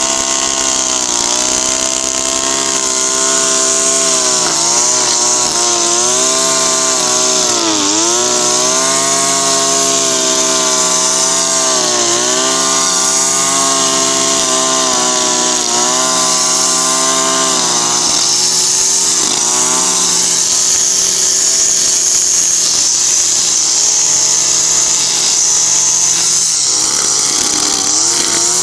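Makita EM3400U two-stroke brushcutter running at high speed, its nylon line head cutting grass. The engine note dips briefly a few times as the line meets the grass, then climbs back.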